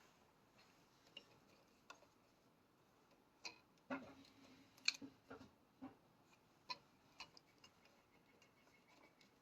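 Faint, irregular clicks and light knocks of small hard objects being handled, about a dozen of them, the loudest about halfway through, over near silence.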